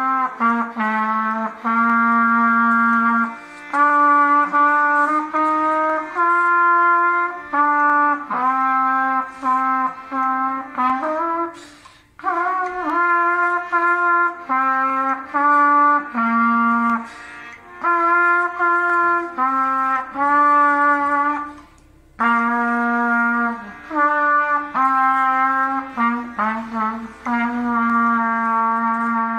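A trumpet playing a melody alone, note by note, in phrases broken by short breath pauses about twelve and twenty-two seconds in.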